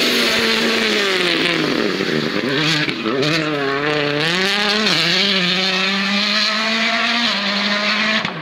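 Hyundai i20 Coupe WRC rally car's 1.6-litre turbocharged four-cylinder engine at full speed. The revs fall over the first two seconds as it slows, waver, then climb steadily as it accelerates away, with a gear change near the end, and the sound cuts off suddenly.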